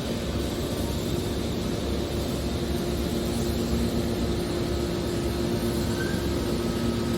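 Hydraulic scrap-metal baler running steadily: a constant machine hum at two fixed pitches over an even hiss.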